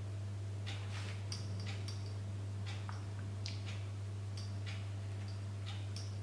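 Steady low electrical hum with faint, irregular high-pitched ticks and clicks scattered over it, about one or two a second, during close-up soldering on wire joints.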